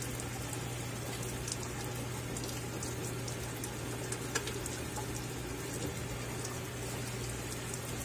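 Consul CWE13AB 13 kg top-load washing machine filling: water spraying and pattering into the nearly empty drum as a steady, even splash, over a steady low hum.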